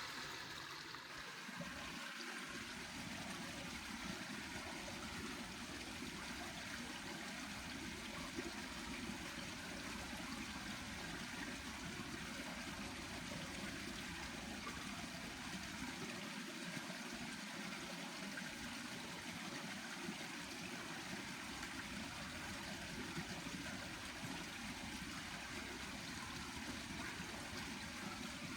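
River water flowing steadily, a continuous even rush.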